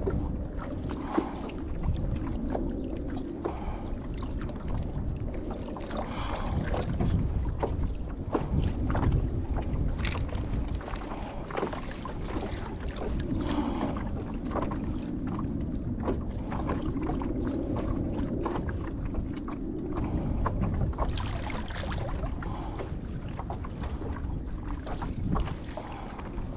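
Water lapping and sloshing against a kayak hull and around a landing net held in the water, with a trout in it being revived. Swishes come every few seconds, over a steady low rumble and scattered small knocks and clicks.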